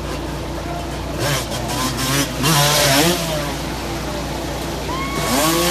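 Dirt bike engine revving hard, its pitch rising and falling, during a big ramp jump. Voices start shouting near the end.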